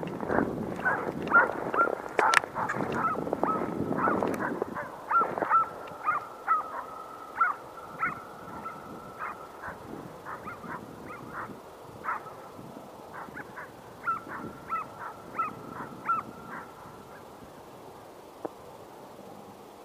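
Estonian hounds baying on a hare's trail, a run of repeated yelping calls. The calls are loud for the first few seconds, then grow fainter as the pack moves farther off.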